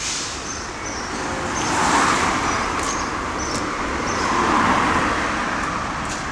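Road traffic going by: two vehicles pass one after the other, the noise swelling and fading about two seconds in and again between four and five seconds. Short, faint, high bird chirps repeat over it.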